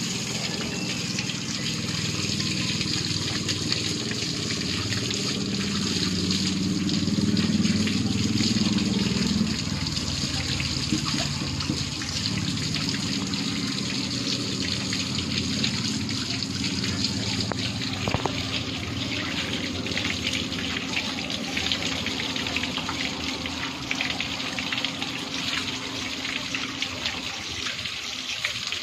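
Tap water running hard from a wall tap and splashing over a rooster being bathed under it, spattering onto the ground and a plastic bucket. A steady gush, a little louder for a few seconds about a quarter of the way in.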